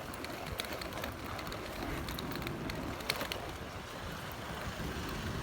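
Steady rain falling, with a few sharp taps of drops.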